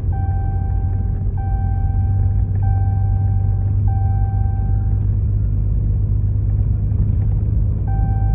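A vehicle engine running steadily with a low rumble, heard from inside the cab. Over it a repeating electronic warning chime sounds in long tones of just over a second each, back to back; it stops about 5 s in and starts again near the end.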